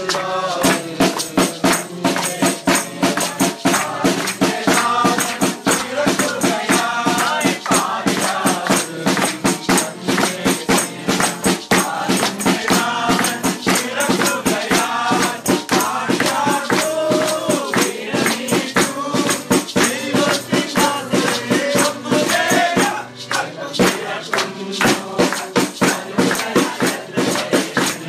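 A group of men, women and children singing a Christmas carol together, with acoustic guitar strummed underneath, a tambourine shaken and struck on a fast steady beat, and hand claps. The singing briefly dips near the end.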